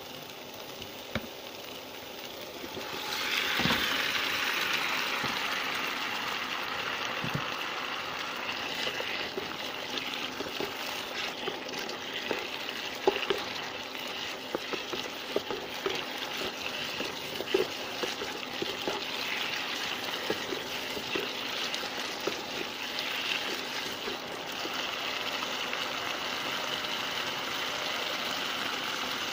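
Eggplant frying with a chili, shallot and garlic paste in a nonstick pan, sizzling steadily, with a wooden spatula stirring and now and then tapping against the pan. About three seconds in, the sizzle suddenly grows louder as the eggplant pieces go into the hot paste.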